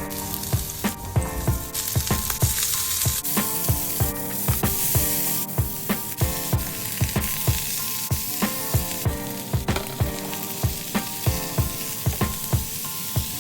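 Food sizzling as it fries in oil in a pan, under background music with a steady beat.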